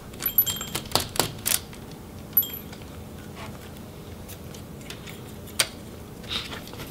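Small metallic clicks and clinks from a precision screwdriver working tiny Phillips screws out of a laptop's metal hinge cover. A quick cluster of sharp clicks comes in the first second and a half, with a ringing metal tick about two seconds in and one sharp click near the end.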